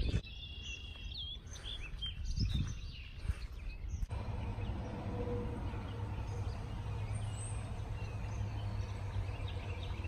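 Small birds chirping and whistling for the first few seconds. After a sudden change, a steady, even outdoor noise with a low hum underneath and a few faint bird calls.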